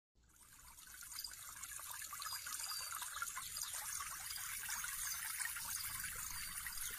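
Faint steady hiss with light crackle, fading in over about the first second.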